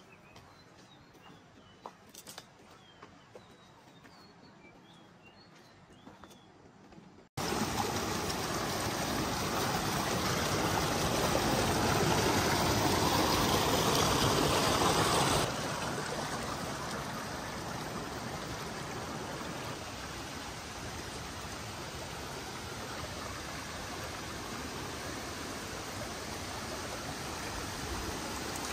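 Small mountain stream rushing and splashing over rocks. The rush starts abruptly about seven seconds in, is loudest for the next several seconds, then settles a little quieter and steady. Before it, faint bird chirps over quiet countryside.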